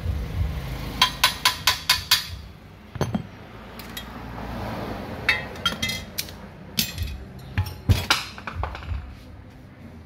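Hammer striking the metal of an electric water-pump motor: a run of about six quick taps about a second in, then scattered metallic knocks and clinks of tools on metal.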